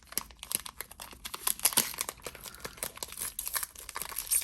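Foil wrapper of a Pokémon booster pack crinkling and tearing as it is opened by hand, a dense run of sharp crackles.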